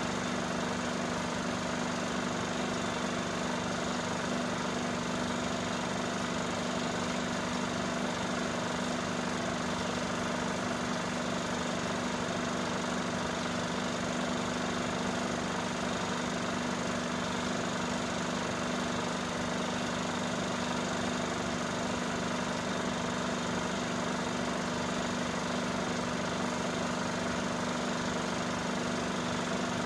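Cine film projector running, a steady mechanical hum that holds the same pitch throughout.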